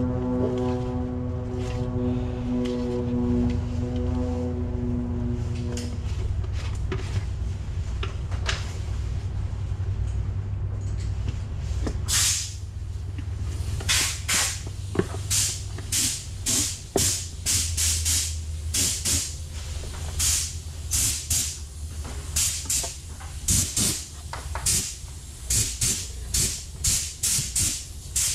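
Plastic containers being handled and powder scooped from a tub into a mixing cup: short rustling scrapes about once a second from about twelve seconds in, over a steady low hum. A pitched hum stops about six seconds in.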